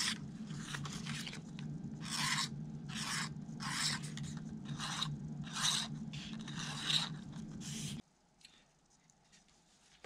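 No. 11 hobby-knife blade scraping the burr off the sanded edge of a thin plastic airfoil template: about a dozen short scratchy strokes, one every half second or so, stopping about eight seconds in.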